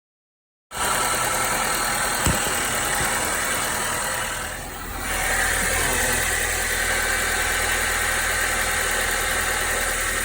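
2012 Nissan Juke engine idling steadily after its timing chain replacement. It cuts in abruptly under a second in, with one light click about two seconds in and a brief dip in level just before the middle.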